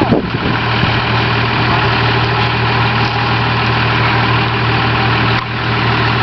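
Pickup truck engine idling steadily, a constant low hum.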